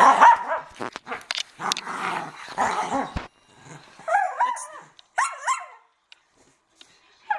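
Two dogs growling and scuffling as they play-wrestle over a ball, followed by a couple of short, high-pitched whining yelps about four and five seconds in.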